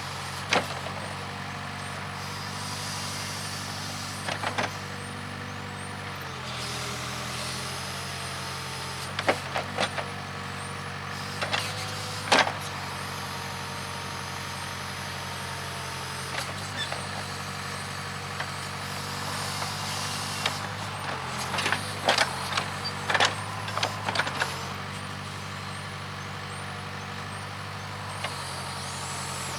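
Case 580K backhoe's diesel engine running steadily, its pitch shifting now and then as it works under load, with sharp metal clanks now and then and a cluster of them about two thirds of the way through.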